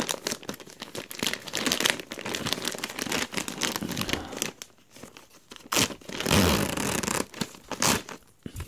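White plastic poly mailer bag being torn open by hand and crinkled, a dense crackling rustle of plastic film. It eases off about halfway through, then comes back louder for a second or two about six seconds in.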